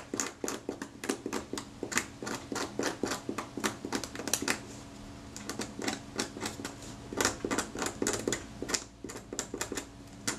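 A thin brass camera shim being scraped to remove corrosion and old adhesive: quick, irregular scratching strokes, several a second, with a short pause about halfway through.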